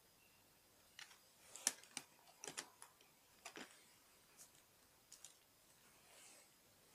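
Faint clicks and clatter of plastic LEGO bricks as a brick-built magazine is handled and fitted into a LEGO Thompson submachine-gun model. Most of the clicks come in a quick cluster in the first half, with a few scattered ones after.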